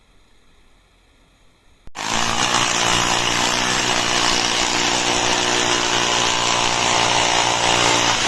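Electric SDS-Plus rotary hammer drill switched on about two seconds in, its motor then running loud and steady.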